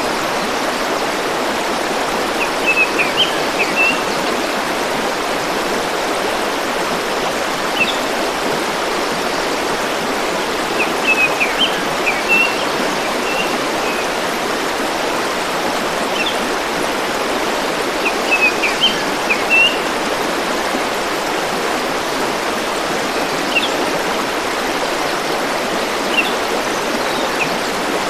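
A stream rushing steadily, with a small bird singing short chirping phrases three times, about every eight seconds, and a few single chirps in between.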